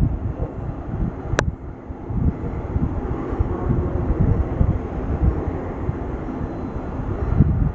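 Jet airliner engines rumbling, a low uneven roar, with one sharp click about a second and a half in.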